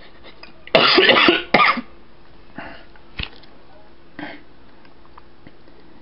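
A person coughing, a longer cough about a second in followed at once by a shorter one.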